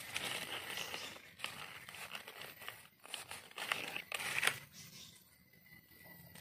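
Dry leaf litter crackling and rustling, with soil scraping, as a mushroom is dug out of the forest floor with a knife and its stem base is cleaned by hand. The crackles come in irregular spurts, loudest a little past the middle.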